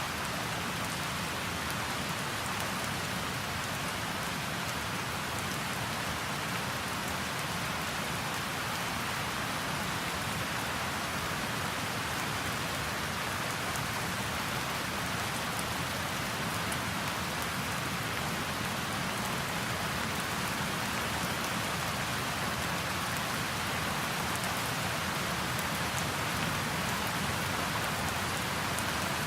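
Steady tropical rain falling on surfaces in a dense, even hiss, with nearby ocean waves adding a low, continuous wash underneath. The rain grows slightly louder toward the end.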